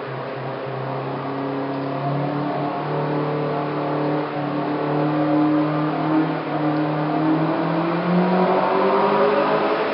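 CNC-converted BF20 Vario mill running, its motors making a pitched whine of several tones that holds steady, then rises in pitch over the last few seconds.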